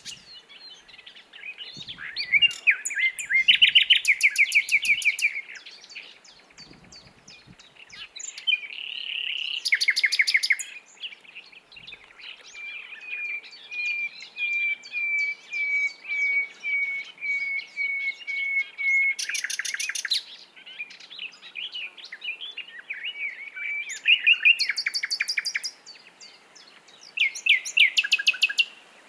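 Common nightingale singing: varied phrases broken by short pauses, with several fast dry rattles and, in the middle, a long slow run of repeated whistled notes, about two a second.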